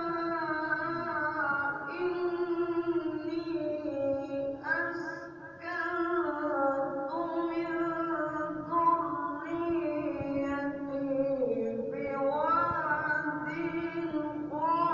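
A qari recites the Quran in the melodic tajweed style, one solo voice. The notes are long and drawn out and glide through ornamented turns, with short pauses for breath between phrases.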